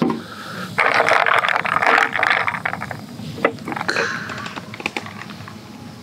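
Gin and tonic fizzing over ice in a glass: a dense crackle of bursting bubbles and settling ice, loudest for about a second and a half from about a second in, with a sharp click a little past halfway.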